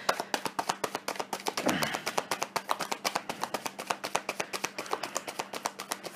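Tarot deck being shuffled by hand: a rapid run of card clicks and flicks, about nine a second.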